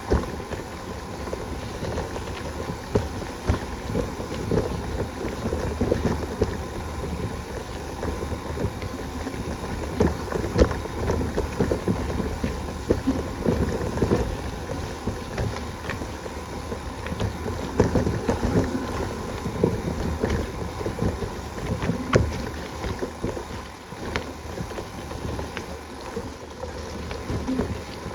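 Wind buffeting the microphone over a steady rumble, with frequent irregular knocks and rattles from a bicycle riding over rough ground.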